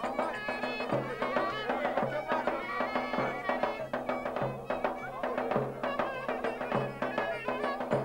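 Live traditional Turkish folk music: a reedy wind instrument plays a wavering melody over regular davul drum beats.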